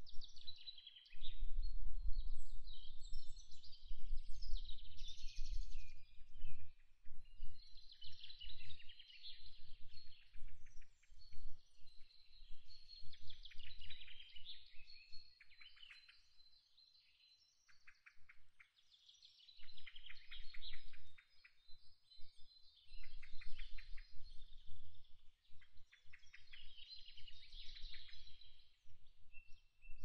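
Small birds chirping and trilling, many calls overlapping. Under them a low rumble comes and goes; it is the loudest sound and fades out for a few seconds past the middle.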